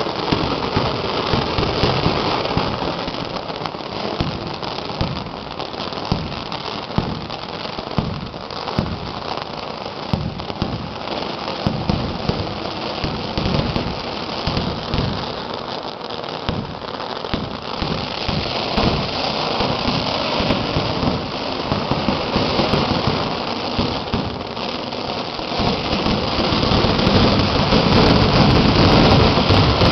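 Fireworks going off in a dense, continuous barrage of rapid crackling pops that merge into a rain-like crackle, growing louder over the last few seconds.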